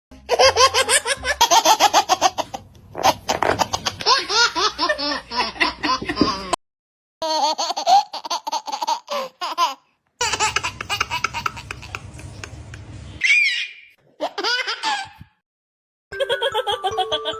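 A string of separate baby-laughter sound-effect clips, one after another: babies giggling and belly-laughing in rapid bursts, with a brief high squeal about 13 seconds in and short silent gaps between clips. Near the end a different clip starts with a few held musical notes.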